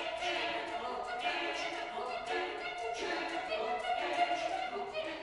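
Chamber choir singing a cappella, voices in chords moving in short phrases that break about once a second.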